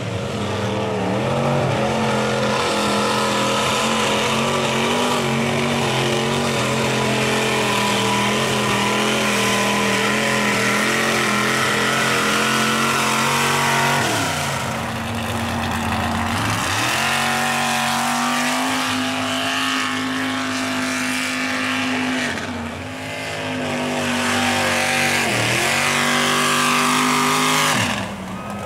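Lifted mud-bogging trucks' engines running hard through a mud pit, holding a high steady pitch. Several times in the second half the revs drop sharply and climb back up.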